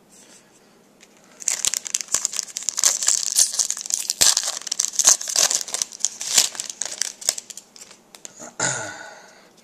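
Foil wrapper of an SP Authentic hockey card pack crinkling as it is torn open and handled, a dense crackle that starts about a second and a half in and runs for some six seconds.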